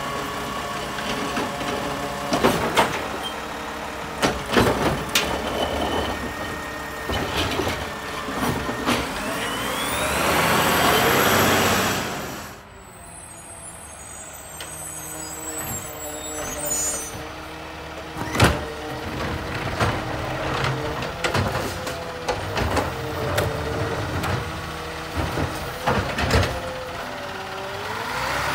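McNeilus automated side-loader garbage trucks at work: a diesel engine running with sharp clanks of the cart being lifted and dumped, and the engine revving up with a rising whine to drive the hydraulics. After a sudden cut about twelve seconds in, a second truck idles and runs its arm, with air brake hiss and a loud bang partway through.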